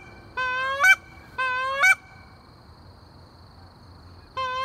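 Hunter's goose call blown to sound like Canada goose honks: three loud two-note honks about half a second long, each a held note that breaks sharply upward at the end, two a second apart early and one near the end, calling to a passing flock.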